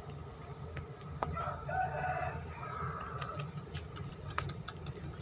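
A rooster crows once, starting about a second in and lasting about a second and a half. Under it run a steady low hum and scattered short clicks.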